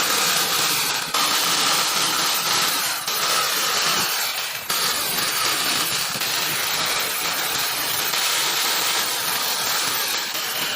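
A power tool running steadily on wood, a continuous dense machining noise with a faint steady whine, changing abruptly about one, three and four and a half seconds in.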